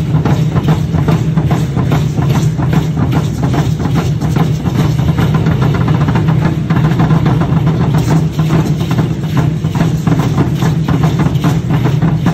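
Upright huehuetl drums beaten in a fast, unbroken rhythm for Aztec dance, with the dense rattling of the dancers' seed-pod ankle rattles over it.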